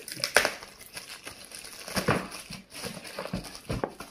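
Bubble wrap crinkling and crackling in irregular bursts as it is handled and pulled at around a boxed camera.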